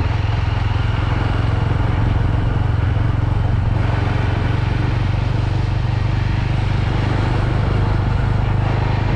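Yezdi motorcycle engine running at a steady speed while riding, with road and wind noise.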